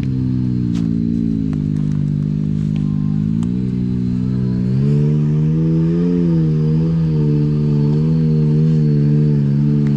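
Can-Am Maverick X3 side-by-side's three-cylinder turbocharged engine running at low revs while crawling over rock. About five seconds in the revs climb, then rise and fall with the throttle.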